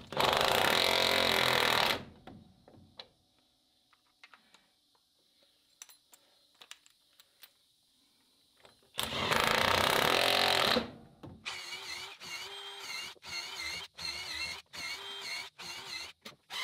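DeWalt cordless impact driver running long construction screws into a wooden post. It hammers steadily in two long bursts of about two seconds, one at the start and one about nine seconds in, then runs in a string of short trigger pulls near the end.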